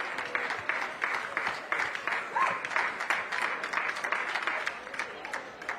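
Audience applauding, a steady patter of many hands clapping that dies away near the end.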